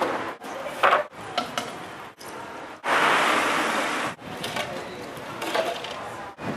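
Wooden boards and plywood panels being handled and set down: knocks, with a sharp knock about a second in and a loud rough rushing noise for about a second around three seconds in. The sound cuts out abruptly several times.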